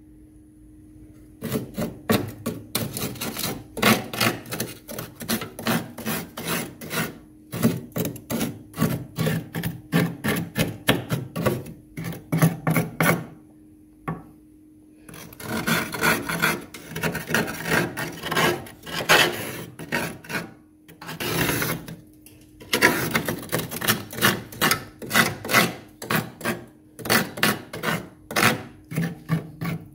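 Metal spoon scraping frost off a freezer's inner wall in quick, repeated rasping strokes. The strokes come in runs broken by short pauses, over a steady low hum.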